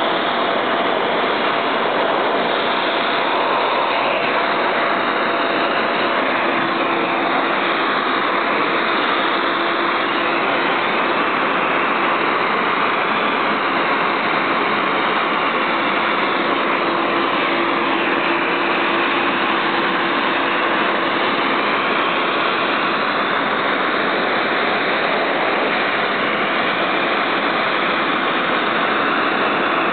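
Dog-grooming blower (force dryer) running continuously, a steady rush of air with a faint motor whine underneath.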